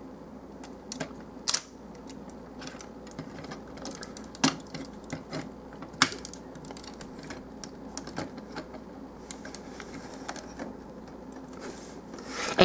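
Hard plastic parts of a Transformers Long Haul action figure clicking and knocking as it is handled and repositioned: a few scattered sharp clicks, the loudest about one and a half seconds in and about six seconds in.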